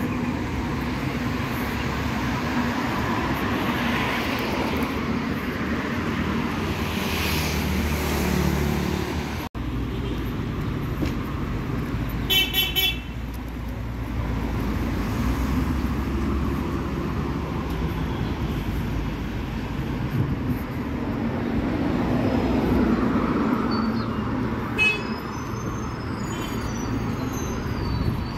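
Steady road traffic, cars and a bus driving by on a city street. A car horn toots briefly about halfway through, and a shorter toot comes near the end.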